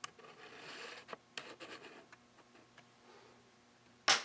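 Hands handling small plastic and glass parts of a dismantled electronic meter: light clicks and a brief scraping rub in the first two seconds, a few faint ticks, then one sharp clack a little after four seconds in, the loudest sound.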